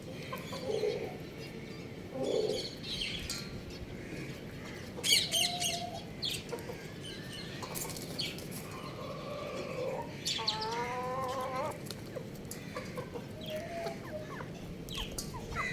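Chickens clucking and calling on and off, with a burst of sharp high chirps about five seconds in and one longer, wavering call at about ten and a half seconds.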